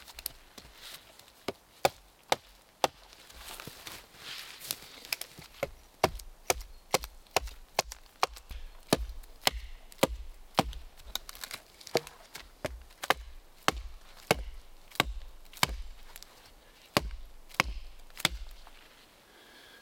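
Hatchet chopping into a wooden pole: sharp wooden chops, each with a dull thud. A few spaced strikes come first, then a steady run of two to three chops a second from about six seconds in.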